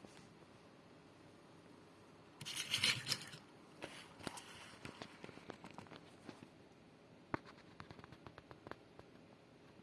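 Soviet mechanical alarm clock being handled: a brief scraping rattle about two and a half seconds in, then a run of small irregular clicks, one sharper than the rest.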